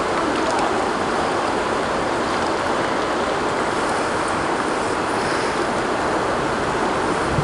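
Water pouring over a low river weir and churning into whitewater below it: a loud, constant rushing.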